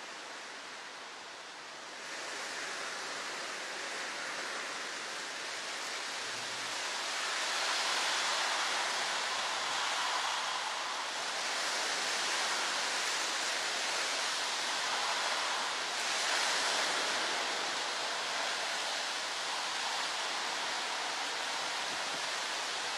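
Storm wind and heavy rain rushing, heard through a doorbell camera's microphone: a steady hiss that grows louder about two seconds in and again around seven seconds in as the downpour thickens.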